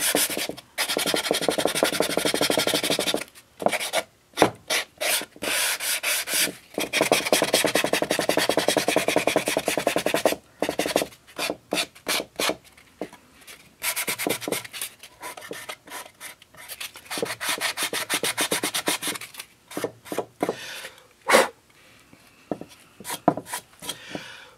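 Sanding block rubbed briskly back and forth along the edges of a painted, paper-covered wooden box to rough them up. The strokes come in long runs of quick scrapes with short pauses between, thinning to a few separate scrapes near the end.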